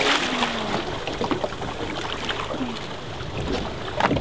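Water sloshing and lapping against the side of a small open boat, with scattered small splashes and ticks. A short, louder burst of splashing noise comes about four seconds in.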